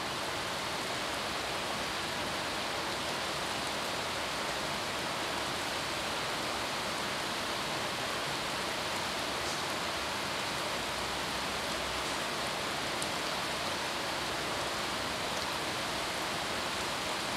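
Steady, even background hiss that does not change, with a few faint ticks in it.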